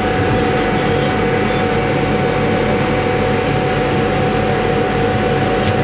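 Steady machine hum with a constant whine, unchanging throughout, and a small click near the end.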